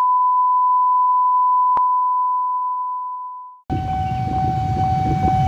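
Steady high-pitched test-tone beep of a colour-bar countdown card, held about three and a half seconds with one click partway, fading out at the end. It then cuts abruptly to outdoor noise with a steady, lower tone running through it.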